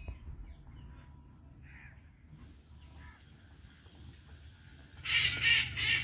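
Young Indian ringneck parakeet giving a harsh squawk of a few quick pulses about five seconds in, after a faint chirp earlier.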